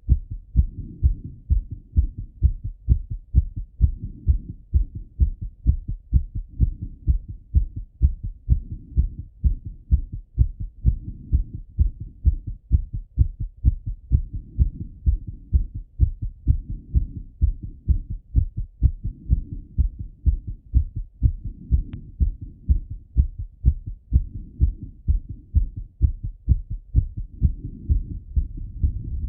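A man's heart heard through a stethoscope on the chest, thumping fast in a steady lub-dub rhythm after a run. Under the beats, a soft rushing swells and fades every three to four seconds.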